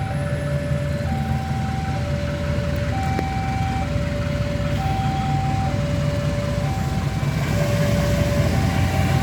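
Railway level-crossing warning alarm sounding two electronic tones, high then low, each held just under a second, over the low rumble of waiting vehicles' engines. The rumble grows louder and noisier near the end.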